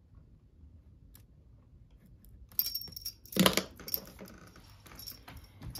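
Stationery being handled at a desk: a faint stretch, then from about halfway a flurry of light clicks, clinks and rustles, with one louder knock.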